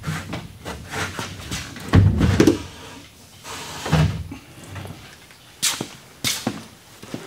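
One-piece fiberglass tub-and-shower insert being tilted upright and pushed into its framed alcove: a string of hollow thumps and knocks as the shell bumps the wood framing and platform, with a few sharper clicks near the end.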